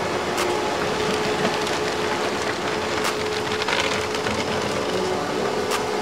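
Steady mechanical whirring and hissing with a faint hum, a machine sound effect in a cartoon.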